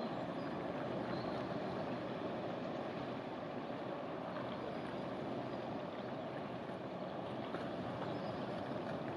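Inland motor barge under way: a steady rush of water along the hull together with engine noise, unchanging throughout.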